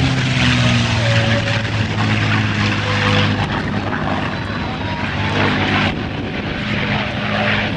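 North American P-51 Mustang's Rolls-Royce Merlin V-12 engine running at power in a low pass and climb: a loud, steady propeller drone with a rushing hiss that swells and fades, its pitch shifting slightly as the fighter moves overhead.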